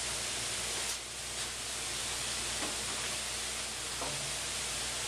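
Woodshop machinery, a bandsaw with dust collection, running with a steady, even rushing noise and a faint low hum. No wood is being fed through the blade.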